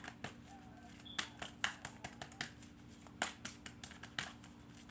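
Tarot cards being handled: about a dozen irregular sharp clicks and light taps as the cards are shuffled and flicked, over a faint steady hum.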